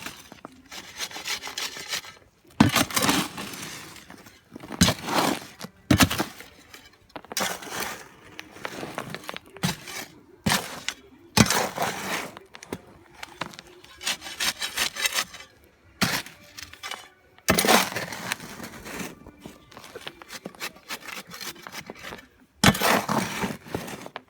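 Gravel aggregate and cement being mixed dry by hand: irregular gritty scraping and crunching strokes, roughly one every second or so.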